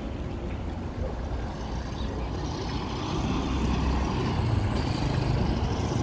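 Low, uneven wind rumble on the microphone of a camera moving along a seafront avenue, mixed with road-traffic noise. It grows louder about halfway through.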